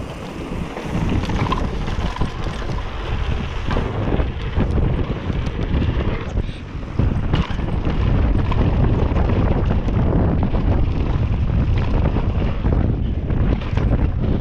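Wind rushing over the microphone and mountain bike tyres running fast on a dry dirt trail, with short rattles and knocks from the bike over bumps. It dips briefly about six seconds in, then grows louder and steadier.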